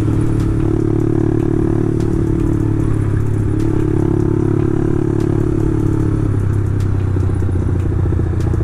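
Motorcycle engine running through an aftermarket exhaust fitted with a half baffle, a steady loud note that shifts slightly in pitch a couple of times.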